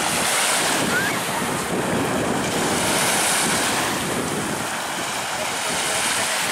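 Small Baltic Sea waves breaking and washing up on a sandy shore, the surf swelling and easing a few times, with wind buffeting the microphone.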